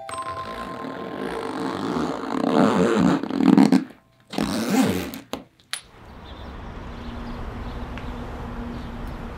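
Zipper on a fabric cat-carrier backpack being pulled shut around its curved mesh door, in long rasping strokes with a short pause in between. About six seconds in this gives way to a steady low outdoor background noise.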